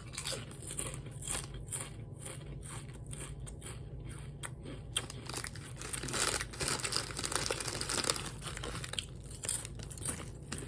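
Ridged Ruffles potato chips crunching as they are chewed: a run of short, sharp crackles, with a denser stretch of crinkling about six seconds in.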